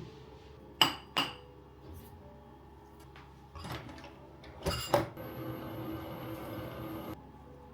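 Dishes clinking as they are handled: two sharp ringing clinks about a second in, then more handling and two more clinks near five seconds. A steady hum with a thin high tone follows for about two seconds and cuts off suddenly.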